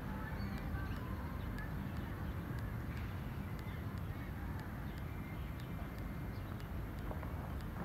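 Outdoor ambience: a steady low rumble with a few faint bird calls.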